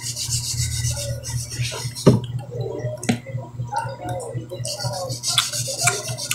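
Meal-table sounds: scattered clicks and scrapes of eating, with one sharp knock about two seconds in, over a steady low hum.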